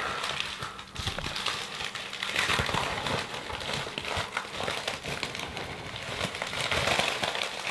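Plastic shipping packaging crinkling and crackling as a sealed package is pulled and torn open by hand, with many small irregular crackles.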